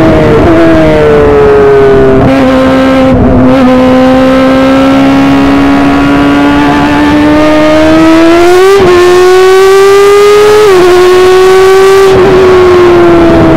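High-revving engine of an F1000 open-wheel race car, a 1000 cc motorcycle-type engine, heard from on board at racing speed. Its pitch steps sharply with quick gear changes in the first few seconds, then climbs slowly through a long pull in gear, with further shifts at about nine, eleven and thirteen seconds.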